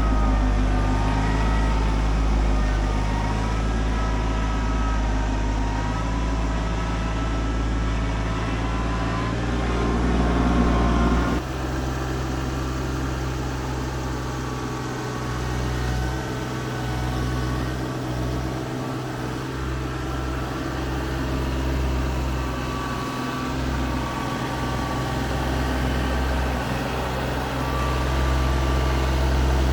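TYM T25 compact tractor's diesel engine running steadily under backhoe work. The engine note changes abruptly about eleven seconds in.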